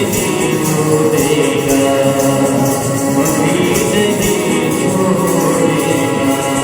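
Devotional worship music with a steady tambourine-like jingle beat, pitched instruments and perhaps some singing.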